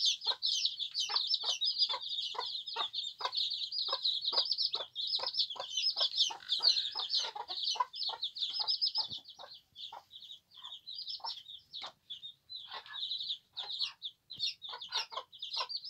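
A brood of newly hatched chicks peeping without pause, high-pitched, over a mother hen's low clucking at about two to three clucks a second. The clucking thins out after about eight seconds while the peeping goes on.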